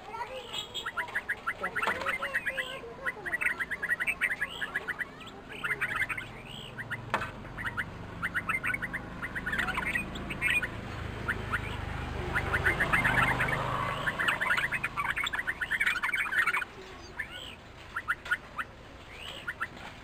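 Red-vented bulbuls calling in bursts of fast chattering notes, with a louder rustling stretch midway as a bird flutters its wings against the window glass. The calling thins out near the end.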